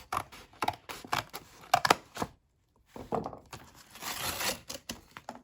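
Mailing package being torn open and handled: a run of sharp rips and crinkles, a brief pause a little over two seconds in, then a longer crinkling rustle of the packaging.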